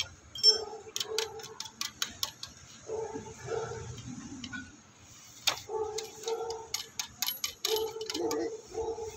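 Irregular sharp metallic clicks and taps from a steel pipe clamp being worked around a PVC borewell casing pipe.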